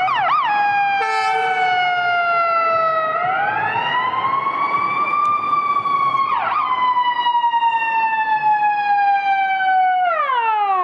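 Ambulance siren wailing, with slow rising and falling sweeps and a quick yelp at the start and again about six seconds in; the pitch drops steeply near the end.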